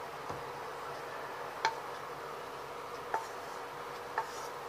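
Wooden spatula knocking against the rim of a metal cooking pan four times, each tap leaving a brief ringing note, as thick cooked cornflour halwa is scraped out of the pan. A steady low hiss underneath.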